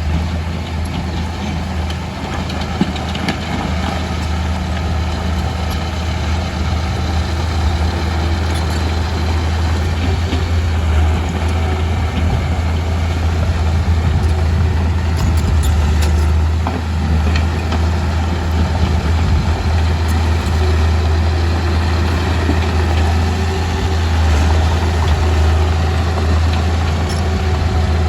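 Komatsu D31P bulldozer's diesel engine running steadily, with a deep, even hum and a few faint clicks over it.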